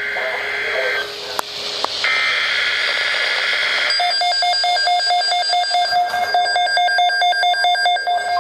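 Emergency Alert System data bursts: buzzy electronic screeches of the digital alert code, about a second of it at the start and again from about two to four seconds in. Then a fast, evenly pulsing electronic beeping takes over.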